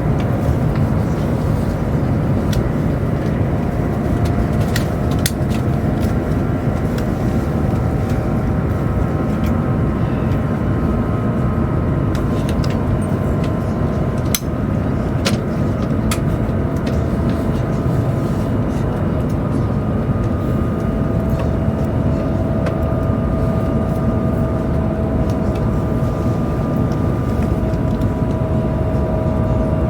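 Steady rumble of a Chinese high-speed train heard from inside the passenger car while running, with faint whining tones held over it and a few light clicks.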